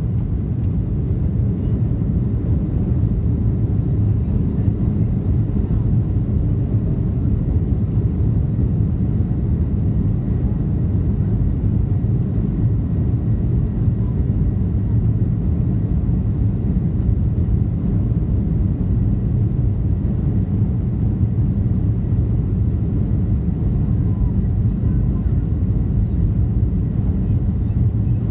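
Jet airliner cabin noise while the plane rolls on the ground: a steady low rumble of the engines and wheels, heard from a window seat over the wing.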